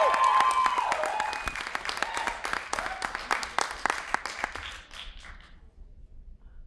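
Audience applauding, with a few trailing whoops and cheers in the first second or so; the clapping thins out and dies away over about five seconds.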